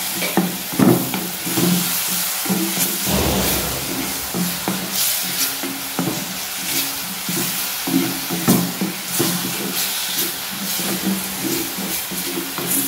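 Wooden spatula stirring and scraping onion, tomato and green chillies with ginger-garlic paste around an oiled earthenware clay pot, in repeated strokes over a steady sizzle of frying.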